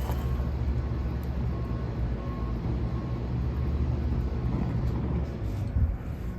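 Wind buffeting the microphone: a steady low rumble that eases off near the end.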